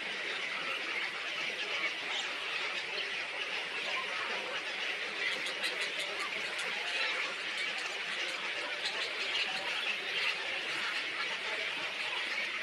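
Many small birds chattering together in a steady, dense twittering, with a run of quick high chirps about five to eight seconds in.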